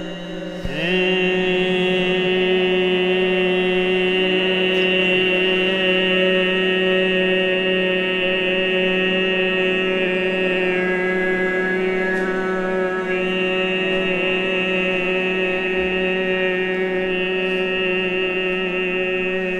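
Overtone throat singing by a man's voice: it slides up into one steady low drone about a second in and holds it for most of twenty seconds, with a high whistling overtone ringing above it. The whistling overtone shifts in pitch around the middle and then returns before the note ends.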